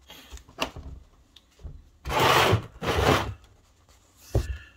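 Handling noise on a workbench: a few light knocks, then two loud, rough rubbing scrapes about two and three seconds in, and a sharp knock near the end.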